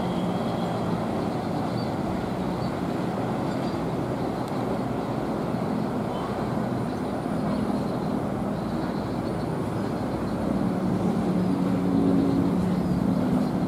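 Walahar Express passenger train running past on the track, a steady rumble with a constant engine hum, getting a little louder near the end.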